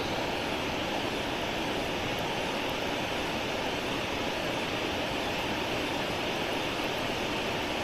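Steady rush of water pouring through a dam spillway, an even roar that does not change.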